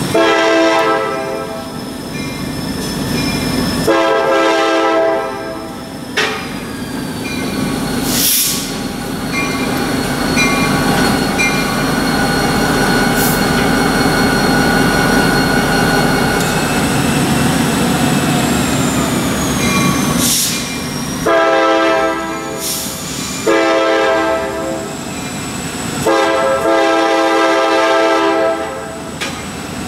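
Diesel freight locomotive blowing its multi-chime air horn for a grade crossing, two blasts at the start and three more near the end. In between, the locomotive's engine runs as it rolls slowly past close by, with faint wheel squeal on the rails.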